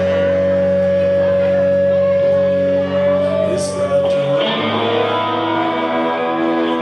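Live rock band with electric guitar, bass and horns playing held chords, one long note sustained over them until the chord changes about four and a half seconds in.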